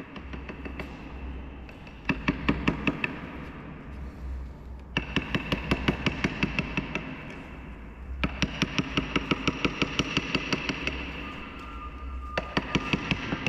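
Rapid tapping of a carving chisel struck with a small wooden mallet, cutting into a wooden plate. The taps come about eight a second in four runs of one to three seconds, with short pauses between them.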